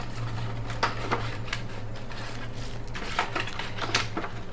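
A few light clicks and taps of small hardware being handled, a laptop hard-drive caddy and its screws, over a steady low hum.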